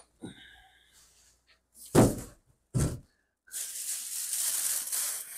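An empty cardboard shipping box is lifted off and set aside, with two loud thuds about two seconds in, then plastic wrapping is pulled off and crumpled, rustling for the last two seconds.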